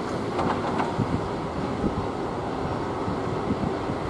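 Airbus A330-300 airliner's jet engines at taxi power, a steady rumble and hiss heard from a distance.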